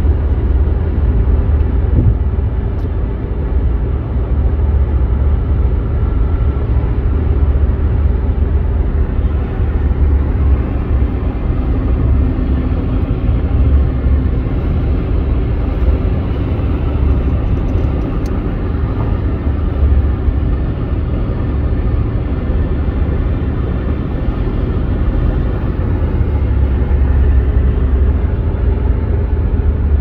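Car driving at highway speed, heard from inside the cabin: a steady low rumble of road noise.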